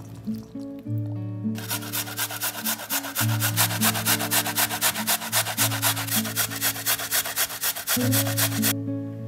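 Carrot being grated on a metal box grater: fast, even rasping strokes, about six a second, starting about one and a half seconds in and stopping near the end. Acoustic guitar music plays underneath.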